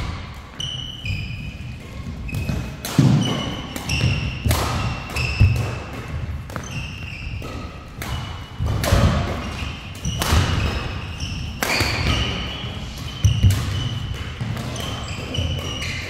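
Badminton doubles rally: sharp racket hits on the shuttlecock come every second or so, mixed with short high squeaks of court shoes and thuds of footsteps on the court floor, echoing in a large hall.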